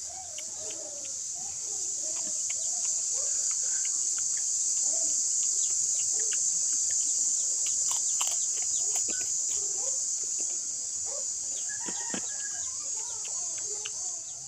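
A steady, high-pitched insect chorus swells over the first few seconds and stays loud. Chickens cluck in the background, and there are scattered small clicks from eating by hand off an enamel plate.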